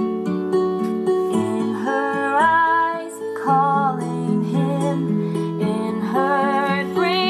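An AI-generated song played back through a small repaired speaker, with a 2.2 µF capacitor as its high-pass filter, fed by a vacuum-tube amplifier: strummed acoustic guitar, with a female voice starting to sing about a second and a half in.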